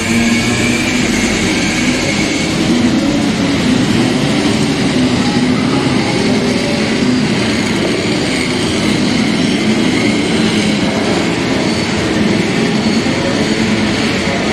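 A pack of two-stroke racing scooters running together, giving a dense, steady engine buzz whose pitches waver slightly.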